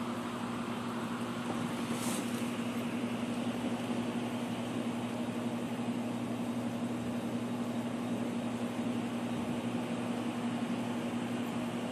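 Steady mechanical room hum from a household machine, with a low steady tone underneath; a brief hiss about two seconds in.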